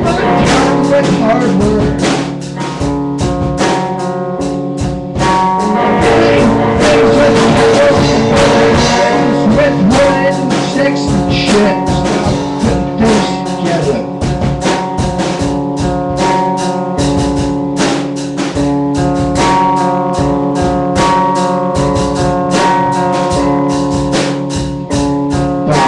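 Rock band practice: electric guitar played loud through an amplifier, with a drum kit keeping a steady beat.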